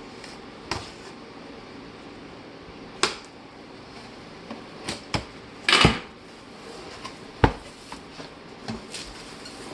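Cardboard box being opened and its packed contents handled: scattered knocks and taps, a longer rustling scrape a little past the middle, and one sharp knock soon after.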